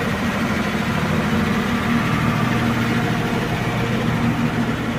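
An engine idling steadily: an even, unchanging low drone.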